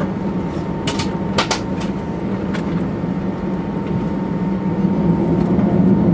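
Steady hum of an airliner cabin's air conditioning at the gate, with a thin whine running through it. A few sharp clicks about a second in.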